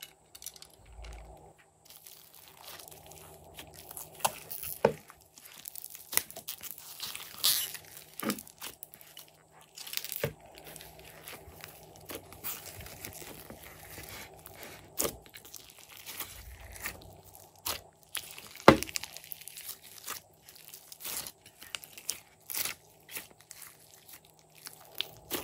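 Hands squishing, pressing and stretching glossy slime with foam beads in it: sticky crackles, tearing sounds and squelches, broken by sharp snapping clicks.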